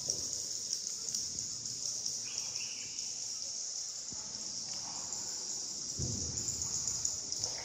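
Steady high-pitched drone of an insect chorus, with a low rumble about six seconds in.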